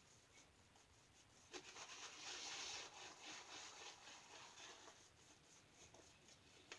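Faint soft swishing and rubbing of a shaving brush, a Fluffy Industries brush with a 30/70 boar/badger knot, working up Williams soap lather in quick strokes, strongest from about a second and a half in to about five seconds.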